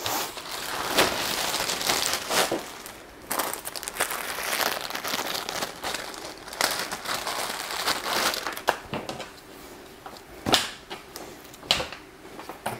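Rustling and crinkling with sharp crackles throughout, as bathing suits are handled and unpacked from the box.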